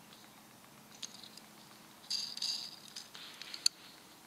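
Fingers handling a 1:64 Hot Wheels Batmobile diecast toy car: a light click about a second in, a brief scratchy rubbing a little after two seconds, and a sharper click near the end.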